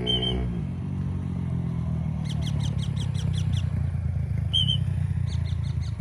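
Two short warbling blasts on a bird-training whistle, one right at the start and one about four and a half seconds in, calling a free-flying ringneck parrot back. Between and after them come quick runs of high, falling chirps, about six a second, over a steady low engine drone that drops in pitch about half a second in.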